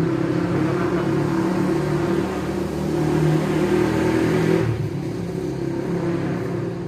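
A motor engine running steadily, growing louder and then dropping back sharply about four and a half seconds in.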